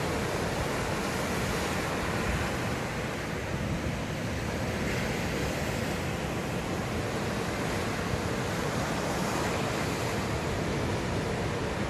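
Sea surf: waves washing steadily onto the shore, with some wind on the microphone.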